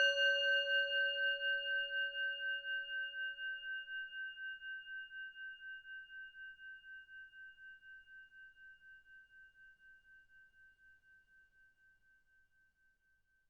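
A struck singing bowl ringing out and slowly dying away, its tone wavering evenly. The lowest hum fades within about five seconds, leaving a clear higher ring that has died out by about twelve seconds.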